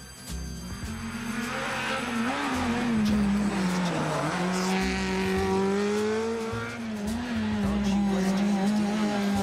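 Rally cars on a tarmac stage, engines at high revs. The engine note climbs as the first car approaches and dips about four seconds in as it goes past, then a second car's engine holds a steady high note.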